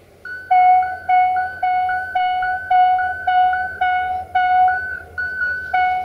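Air horn of the GM diesel locomotive 64-0962-2 sounded in a quick run of short, evenly spaced blasts, a little under two a second, played like a tune. A low engine hum lies beneath.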